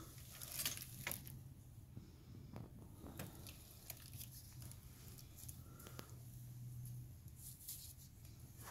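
Faint rubbing and squishing of gloved fingers smoothing high-temperature gasket cement around a wood stove's flue collar, with a couple of sharper clicks about a second in. A steady low hum runs underneath.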